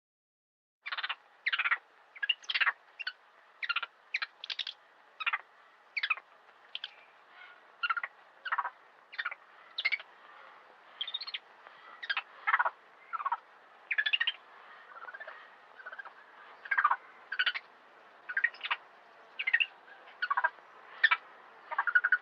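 Macaque monkeys calling: a long run of short, sharp, high-pitched calls, about two a second and irregularly spaced, starting about a second in.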